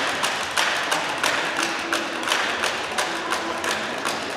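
Spectators clapping in time in a sports hall, about three sharp claps a second, echoing.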